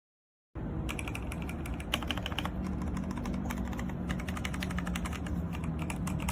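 Machenike K500 B84 mechanical keyboard being typed on fast: a dense, continuous run of keystroke clicks that starts abruptly about half a second in, after dead silence.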